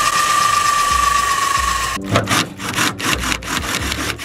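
Cordless drill spinning its bit through the trunk lid with a steady whine that stops sharply about halfway through. It is followed by a quick series of rasping scrapes, about five a second, as the bit cuts through the panel.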